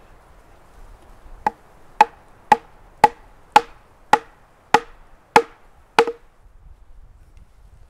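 Nine sharp wood-on-wood knocks, about two a second, each with a brief hollow ring: a pole leg being driven down into a hole in a log.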